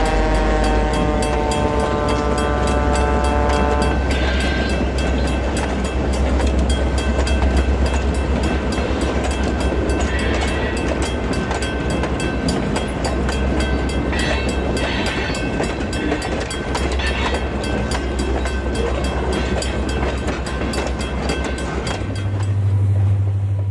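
Freight train sound on a Milwaukee Road HO scale model layout: a horn chord sounding for the first four seconds, then a steady rumble with rhythmic clicking of wheels as the train rolls past, changing and fading near the end.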